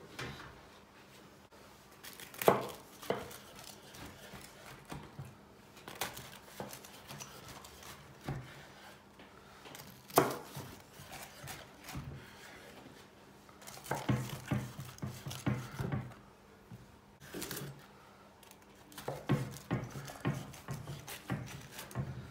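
Knife cutting a crusty baked tray börek on a wooden cutting board: scattered crunches and sharp taps of the blade reaching the board. They come singly at first, then in busier runs in the middle and near the end.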